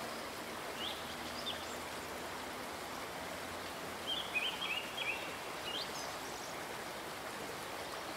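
Water of a small rocky stream running steadily, with a few short bird chirps about a second in and a small cluster between about four and six seconds.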